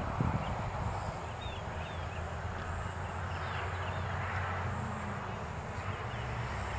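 Outdoor ambience: a steady low rumble with small birds chirping now and then, and a couple of soft knocks at the very start.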